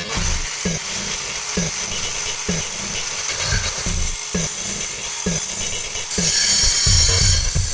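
Cartoon sound effect of a spinning circular saw blade whirring steadily, with a low thump recurring about once a second. About six seconds in it grows louder and harsher as the blade grinds against teeth.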